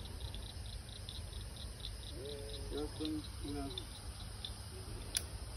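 Chorus of crickets and other insects: a steady high buzz with evenly spaced chirps about four a second. A few faint pitched sounds come a couple of seconds in, and a single sharp click about five seconds in.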